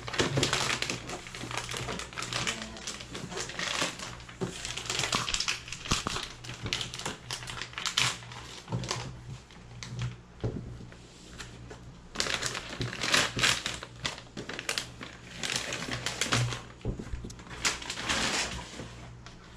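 Plastic packaging crinkling and rustling with scattered clicks and light knocks, as an all-in-one PC is unwrapped by hand and set on its stand. The handling comes in irregular bursts, busiest about two thirds of the way through and again near the end.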